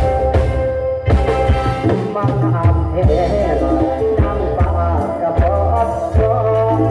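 Mor lam sing band playing live through a PA: a steady drum-kit and bass beat under held keyboard notes, with singing in the middle.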